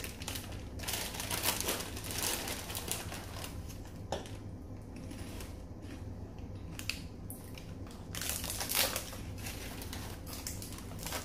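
Crinkling and crunching of crispy roasted seasoned seaweed sheets and their plastic snack packs as they are handled and eaten. The crackles come in irregular clusters, heaviest in the first few seconds and again in two short spells in the second half.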